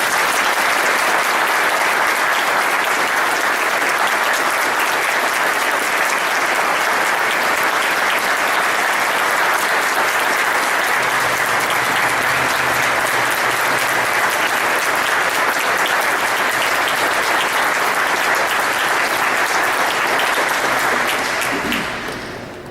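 Congregation applauding steadily for a long spell, then dying away near the end.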